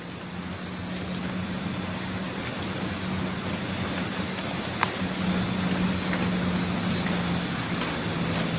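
Steady hissing background noise with a constant thin high-pitched tone and a low hum beneath it, broken by one sharp click about five seconds in.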